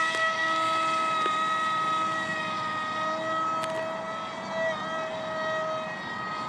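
Power Up 450 Zoom 2200kv brushless outrunner motor spinning an APC 6x4 propeller on a foam RC jet at steady throttle in flight: a high, even whine that grows gradually fainter as the plane flies away.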